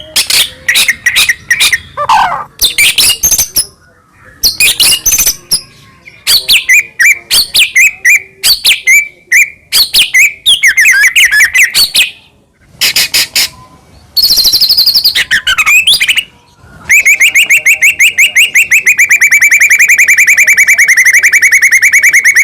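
White-rumped shama (murai batu) singing a loud, varied song of quick whistles, clicks and short trills, breaking into one long, fast, even trill about three quarters of the way through.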